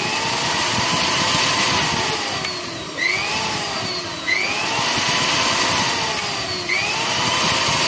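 Ultra King mixer grinder motor running flat out with a loud whir and whine. Its pitch rises and falls several times as it speeds up and eases off.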